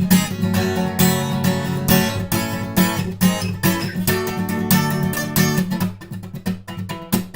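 Acoustic guitar strummed in a steady rhythm using the 'knock' (стук) technique: strums broken up by sharp muted percussive strikes on the strings. The strokes come closer together near the end.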